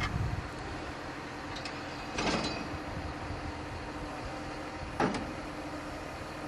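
Farm machinery running with a steady hum, with clunks at the start, about two seconds in and about five seconds in.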